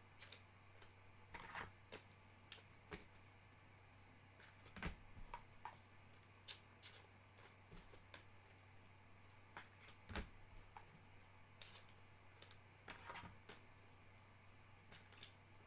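Faint, scattered clicks and soft slides of stiff trading cards being flipped through by hand, one after another at an uneven pace, over a low steady hum.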